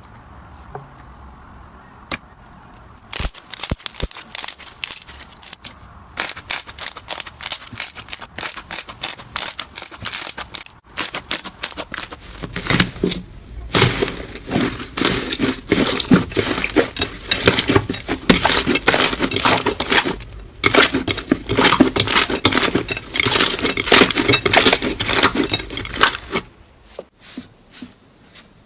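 Slime being squeezed and poked by hand, giving off rapid crackling and popping clicks. It starts softly, grows denser and louder after about twelve seconds, and eases off again near the end.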